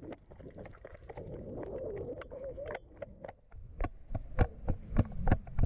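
Footsteps with rustling. After about four seconds they settle into steady thuds about twice a second.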